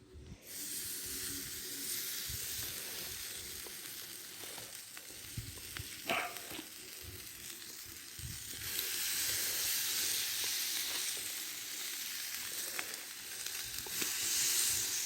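Food sizzling as it fries: a continuous hiss that grows louder about halfway through. A brief sharp knock about six seconds in.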